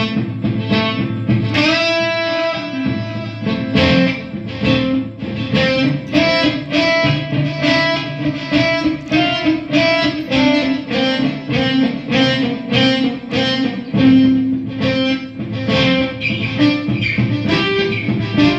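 Electric guitar played through a Marshall combo amplifier with a crunchy overdriven tone: a held, ringing note about a second and a half in, then a run of quick picked notes.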